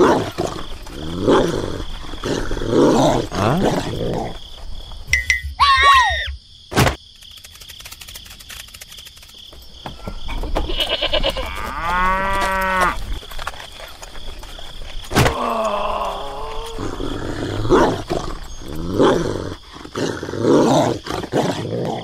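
A string of animal calls: a dog's yelps and whines in the first few seconds, then a cow mooing once, long and steady, about twelve seconds in, with more short animal calls near the end.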